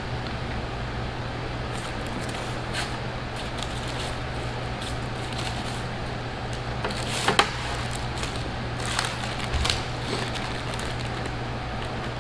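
Crackling and rustling of the tray's paper lining and food being handled by hand, in scattered clicks with a couple of sharper ones about seven and nine seconds in, over a steady low background hum.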